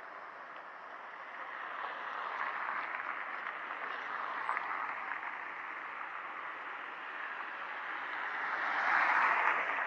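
Road traffic: cars driving past on a nearby road, a steady hiss of tyres and engines that swells as a car passes close, loudest near the end.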